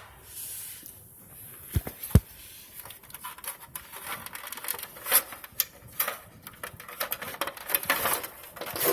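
Handling noise as hands work at the treadmill's plastic cover and HDMI cable: two sharp knocks about two seconds in, then a run of rapid clicks and rustling.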